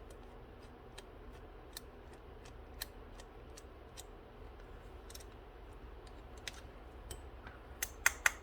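Small metal clicks and ticks of a screwdriver working the main jet out of a Honda EU3000is carburetor. They are sparse and faint at first, then come as a quick run of louder clicks near the end.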